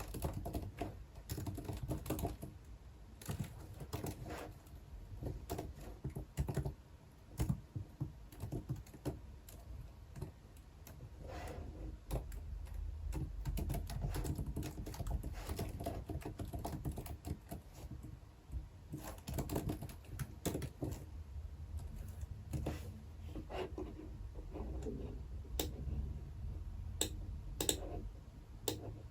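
Typing on a computer keyboard: irregular runs of keystrokes with short pauses, over a faint low hum.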